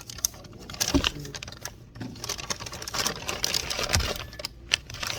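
Rapid irregular clicking and rustling of things being handled, with a couple of sharper knocks, about one second in and near four seconds.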